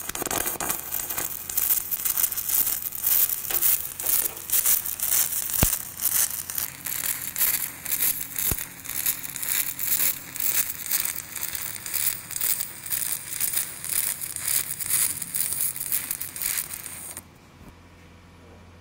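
Aluminum stick-welding arc (shielded metal arc with an aluminum electrode) crackling and sputtering, its loudness surging unevenly, then cutting off suddenly about seventeen seconds in as the arc is broken. A low steady hum remains after it stops.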